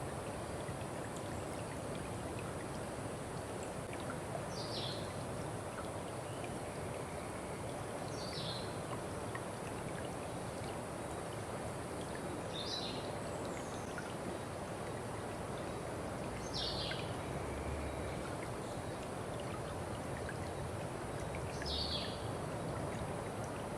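Stream of water running steadily, with a bird giving five short, falling calls a few seconds apart.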